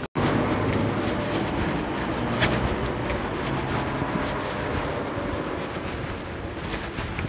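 Steady low mechanical hum of machinery running, with even low tones under a noisy haze and a few faint clicks about two and a half seconds in.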